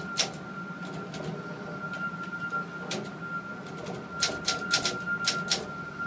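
Typewriter organ being played: sharp mechanical clacks of its typewriter keys and typebars, a few spaced out at first and then a quick run of about seven in the second half, over a steady high tone.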